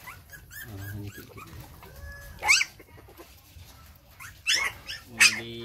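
Puppies yelping and whimpering: short high-pitched cries that rise in pitch, the loudest about two and a half seconds in and two more close together near the end.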